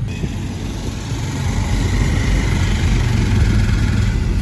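Car engine and road noise heard from inside the cabin as it drives through town traffic, a steady low rumble that grows louder about a second and a half in.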